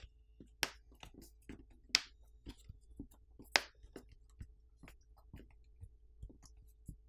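Fingers pressing and tapping a smartphone's plastic back plate down onto fresh adhesive and shifting the phone on the table: a string of light, irregular clicks and taps, the sharpest about two and three and a half seconds in.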